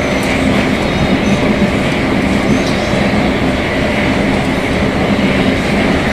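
Metro train running at speed: a steady rumble of wheels on rail under a steady hum from the traction motors, which are growling ('roncando').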